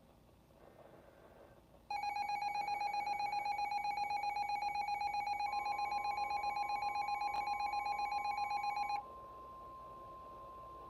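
Emergency Alert System attention signal, a steady two-tone alarm, sounds for about seven seconds starting about two seconds in and cuts off abruptly. A single higher steady tone, the weather-radio warning alarm, joins partway through and carries on alone, quieter, after the attention signal stops.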